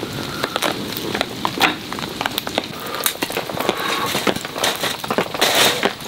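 Wood campfire crackling, with irregular sharp pops over a steady hiss.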